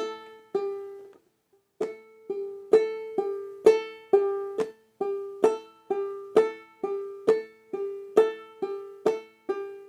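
Banjolele, tuned G-A-E-A, played slowly in clawhammer style: a fingernail strike on a string alternating with a note pulled off by the thumb. The notes come about two a second, the strikes brighter than the thumb notes, with a brief pause about a second in.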